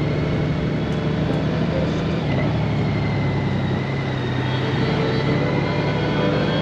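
Honda Gold Wing motorcycle riding at a steady pace, its engine running evenly under way.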